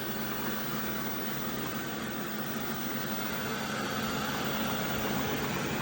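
Robot vacuum cleaner running: a steady motor and fan hum with a faint whine, growing slightly louder in the second half.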